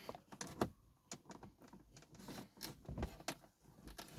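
Scattered light clicks and taps of plastic: a plastic car dashboard trim panel being worked at with plastic pry tools.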